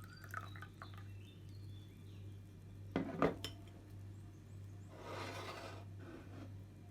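A quick cluster of sharp clinks and knocks about three seconds in, like crockery or cutlery being handled, over a steady low hum, followed by a short rushing swish about five seconds in.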